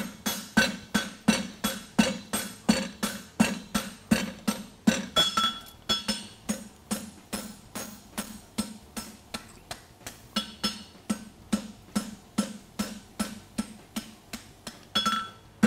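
Steady forging blows of a hammer on red-hot 3/8-by-1¼-inch steel bar stock against an anvil, about three a second, each blow ringing off the anvil, as one branch of a horseshoe is drawn out.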